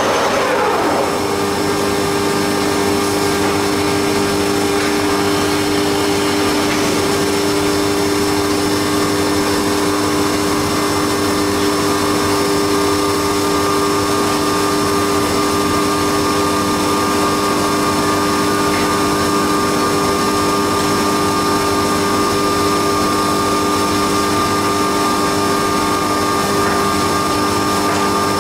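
Haas CNC milling machine running during a fourth-axis cam machining job, a steady mechanical hum with several held tones. In the first second a whine falls in pitch before the running settles.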